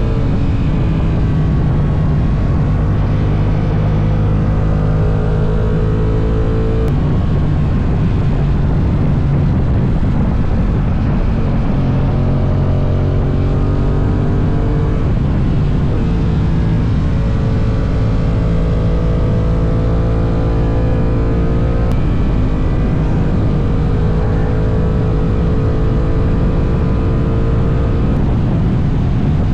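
Honda NT1100's parallel-twin engine running at highway speed, its note climbing slowly and dropping back a few times as the throttle changes, over steady wind and road rush on the onboard microphone.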